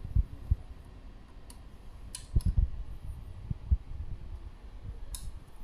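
A handful of light knocks and clicks, irregularly spaced, from tool work on an e-bike's rear disc brake caliper mounting screws.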